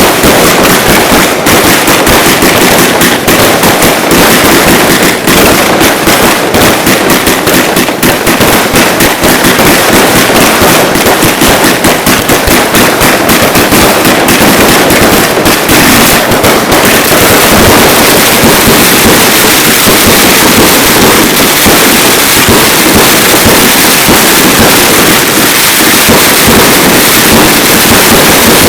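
Ground-firework barrage: loud firecrackers going off in rapid, dense succession, the separate bangs merging into one unbroken crackle about halfway through.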